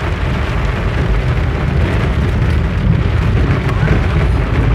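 Heavy tropical downpour drumming on a car's roof and windshield, heard from inside the moving car as a steady, dense hiss over a low rumble.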